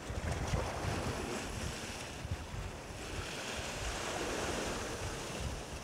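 Sea waves washing against a rocky shore, a steady wash of noise with wind rumbling on the microphone.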